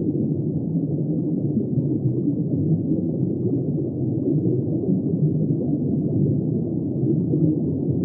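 Underwater ambience: a steady, deep, muffled rushing noise with no high sounds in it.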